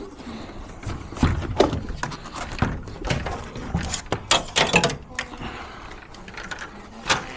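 Irregular knocks, clicks and clatter of hard objects being handled, densest from about one to five seconds in.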